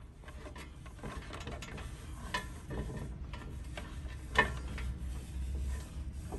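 Hands handling cables and fittings inside a metal-and-plastic display shelf: scattered small clicks and rattles, with a sharper click about four and a half seconds in, over a low steady hum.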